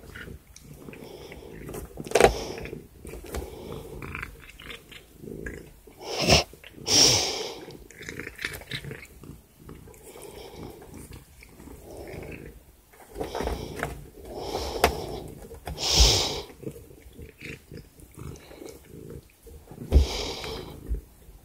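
Tabby cat on catnip sniffing and rubbing its face against a hand close to the microphone: irregular breathy snuffling bursts, several of them louder than the rest.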